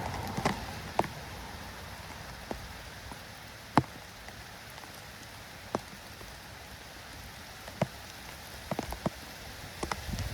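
Steady patter of light rain, with irregular sharp ticks of single drops or taps on a hard surface scattered through it.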